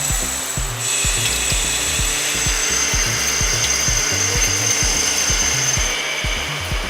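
A CNC lathe cutting metal, heard as a high-pitched whine with hiss, mixed under background music with a steady beat and bass line.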